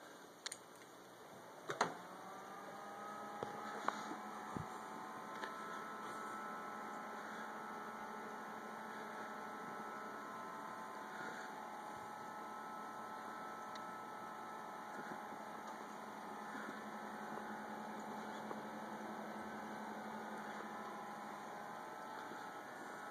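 Computer case fans starting up after a click about two seconds in, then running with a steady hum and whine, with a few more clicks in the next few seconds.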